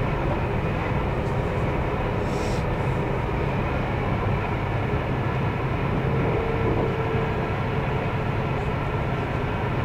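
Electric commuter train running at speed, heard from inside the carriage: a steady rumble of the wheels on the rails with faint steady hums above it.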